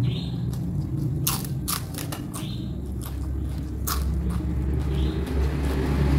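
Close-up eating sounds: irregular crisp crunches and bites of food being chewed, over a steady low background hum.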